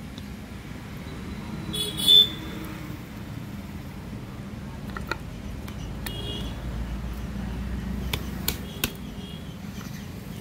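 Hard plastic clicks and knocks as a car battery's vent caps are handled: a loud sharp clack about two seconds in, then a few short clicks later on, over a steady low rumble of background noise.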